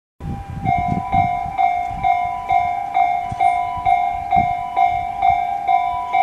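Japanese railway level-crossing electronic warning bell ringing in a steady, even rhythm of just over two strikes a second, with some irregular low rumbling underneath.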